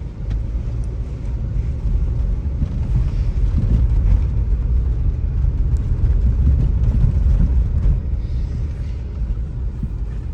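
Steady low rumble of a car driving, road and engine noise heard from inside the moving vehicle, growing louder for several seconds in the middle and easing off near the end.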